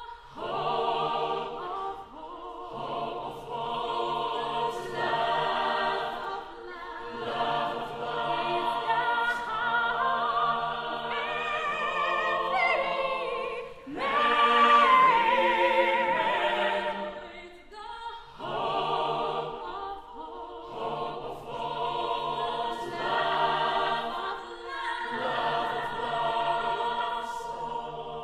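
Mixed choir of men's and women's voices singing unaccompanied, sustained chords in long phrases. It swells loudest about halfway through, with one high voice wavering above, and drops briefly about two-thirds of the way through before the next phrase.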